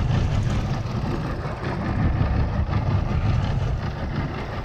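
Mercury 150 outboard motor running steadily in gear at trolling speed, a constant low rumble with water rushing and splashing past the stern.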